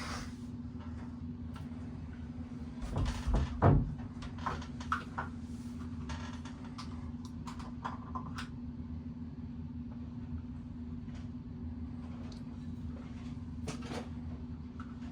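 Handling noises: scattered clicks and knocks, loudest a cluster of heavy knocks about three to four seconds in, over a steady low hum.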